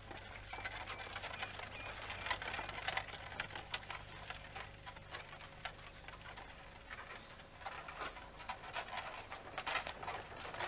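Horse-drawn wooden farm cart on a paved road: the horse's hooves clop and the cart rattles along in a steady run of irregular clicks and knocks.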